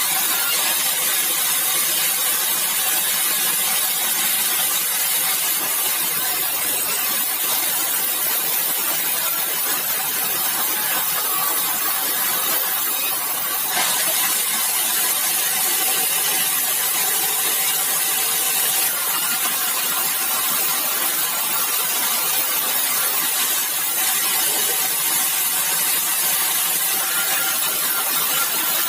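Sawmill machinery sawing bengkirai hardwood: a loud, steady, hiss-like noise that holds at the same level throughout.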